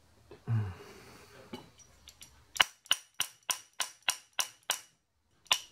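A soft-faced mallet tapping on the steel parts of a lathe slotter, seating the slide plate: a run of sharp, even taps about three a second, each leaving a short metallic ring, with a brief pause near the end. A dull thump about half a second in, as the assembly is handled.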